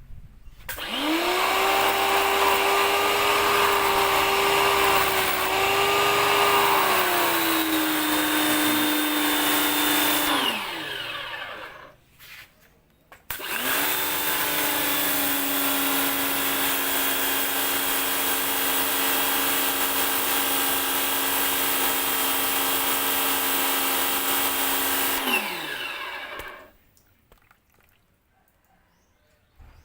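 Portable high-pressure jet cleaner with a brushed electric motor, starting up and running with a steady whine, then winding down. It starts again a couple of seconds later, runs for about twelve seconds and winds down again. In the first run the pitch drops slightly partway through.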